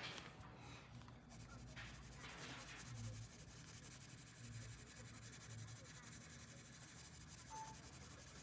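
Colored pencil scratching faintly on paper in rapid back-and-forth shading strokes.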